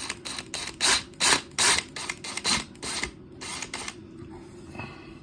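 A quick run of short, irregular clattering and scraping noises, about a dozen over the first four seconds, from tools and screws being handled, then it goes quieter.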